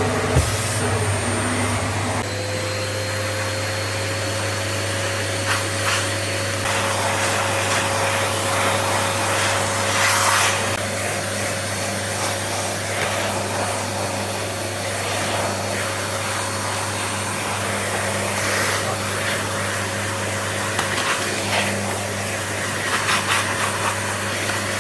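Paper-bag vacuum cleaner running steadily, with a steady whine setting in about two seconds in and short scraping sounds now and then as the nozzle is worked over the floor.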